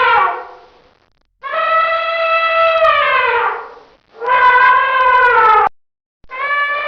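Elephant trumpeting: a series of loud, brassy calls with short silent gaps. One call fades out at the start, two more follow (the first sliding down in pitch as it ends), and another begins near the end.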